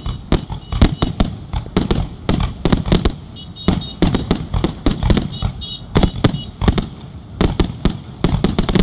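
Aerial fireworks shells launching and bursting in quick succession: a dense run of sharp bangs, several a second.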